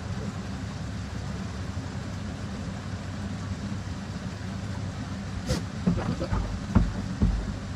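Steady low background rumble, then a few knocks and scuffling thumps in the last couple of seconds as goats shift and a buck rears up against a doe, their hooves scraping the hard floor. No bleating.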